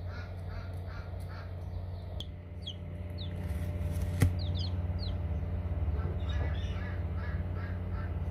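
Newly hatched chicks peeping, with short falling cheeps and runs of quick repeated calls, over a steady low hum. A single sharp click sounds a little past halfway.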